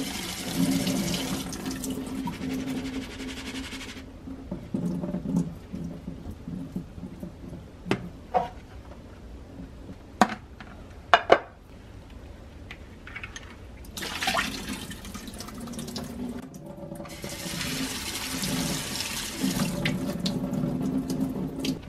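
Kitchen faucet running into a stainless steel sink as seeds in a green plastic sprouting tray are rinsed and the water drains through the tray. The tap runs in three spells, the middle one brief, with a few sharp knocks of plastic trays being handled between them; the knocks are the loudest sounds.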